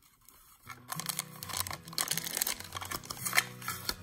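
Plastic packaging crinkling and tearing as it is handled and pulled open, in quick irregular crackles, over background music that comes in just under a second in.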